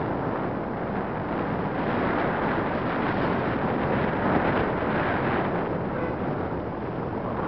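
Wind blowing across the microphone, a steady rushing noise that swells a little in the middle.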